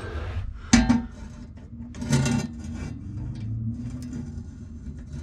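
Crescent wrench clinking and scraping against a steel fireplace damper while tightening a damper clamp's bolt, with one sharp metallic knock about a second in and a short rattle a little later.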